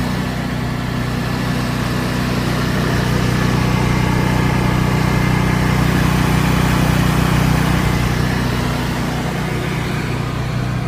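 An engine running steadily at a constant speed, its low hum unchanged throughout.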